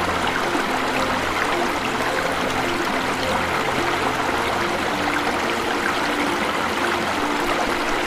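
Water from a small waterfall rushing and splashing steadily, with a slow melody of soft held notes underneath.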